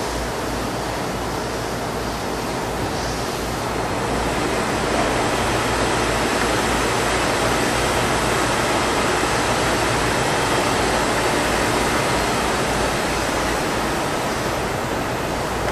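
Steady rushing noise with a low rumble beneath it, growing a little louder about four seconds in.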